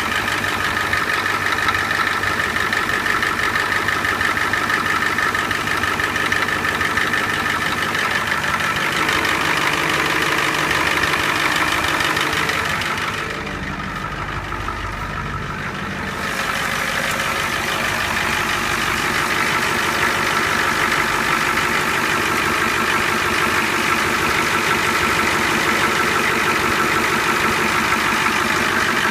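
A 1991 Navistar bus's diesel engine idling steadily soon after a cold start. It has an exhaust leak at the front of the manifold. The sound turns briefly quieter and duller about halfway through, then returns.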